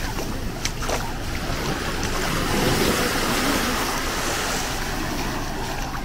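Small waves breaking and washing up on a sandy beach: a steady surf wash.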